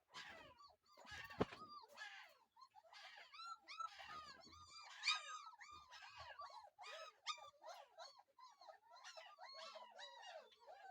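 German shepherd puppies whimpering and squeaking: many short, high, arching cries overlapping one another, thickening after the first few seconds, with a couple of sharp knocks near the start.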